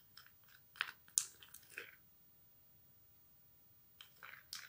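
Plastic spoon stirring a thick henna-and-cocoa paste in a small jar: a string of short, faint scraping strokes that stop about two seconds in and start again near the end.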